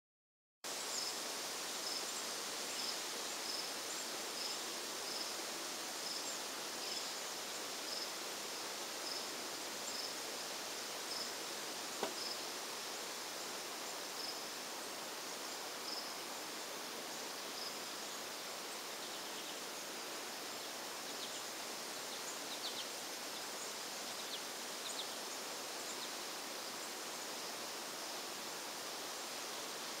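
Cricket chirping regularly, a short high chirp about once every second, over a steady outdoor hiss; the chirps grow fainter in the second half. A few faint high sweeping calls come in later, and there is one faint click midway.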